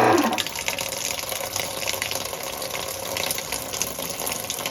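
Kenmore Series 500 top-load washing machine in its initial sensing cycle: a pitched motor hum that fades away in the first moment, then a steady rushing, grinding noise. The drum is not turning because the splines inside the motor pulley have stripped, leaving the pulley spinning free on its shaft.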